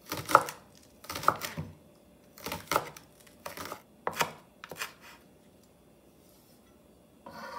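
Chef's knife chopping green onions on a wooden cutting board: a series of sharp knocks of the blade on the board, about one or two a second, stopping about five seconds in.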